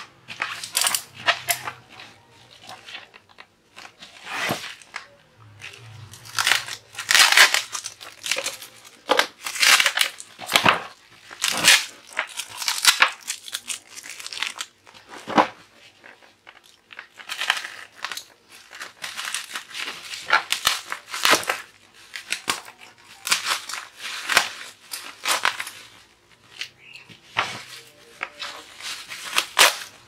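A plastic-wrapped parcel being torn open by hand: crinkling plastic wrap and packing tape, with repeated rips, in short irregular spells.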